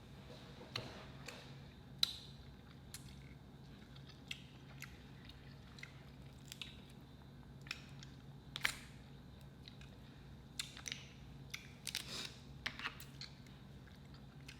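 Faint eating sounds while chewing seafood: scattered sharp mouth clicks and smacks, with a quick cluster of them about two thirds of the way through, over a low steady hum.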